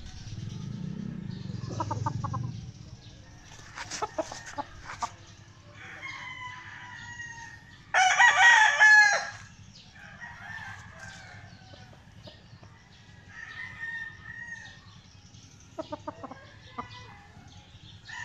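Roosters crowing: one loud, close crow about eight seconds in, lasting just over a second, with fainter crows from roosters farther off before and after it.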